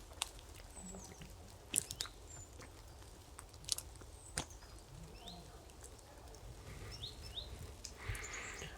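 Small birds giving short, high chirps now and then, with a few sharp clicks and crunches in between.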